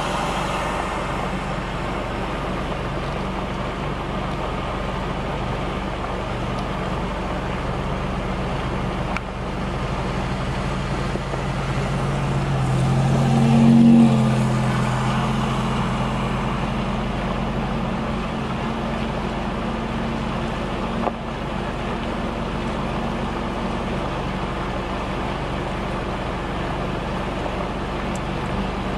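Steady rushing noise of floodwater and wind. A car drives past, growing louder to its peak about halfway through and then fading away.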